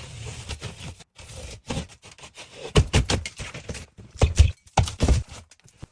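Drywall being ripped off a wall by hand: a scraping start, then a run of irregular cracks and crunches as pieces of board break away, loudest in the second half.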